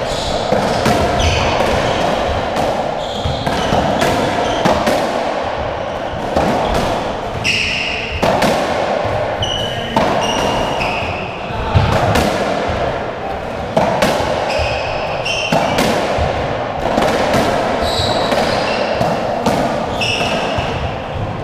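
Racketball rally on a squash court: the ball is struck by rackets and smacks against the walls and wooden floor about once a second, with short high squeaks from court shoes between the hits.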